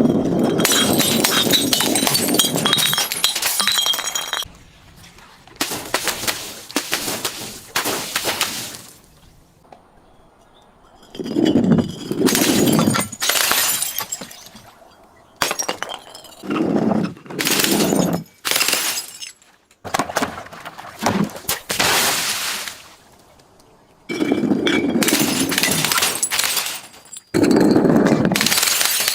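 Glass and crunchy objects being crushed and breaking, in a dozen or so loud crunching bursts of one to four seconds each, with short pauses between.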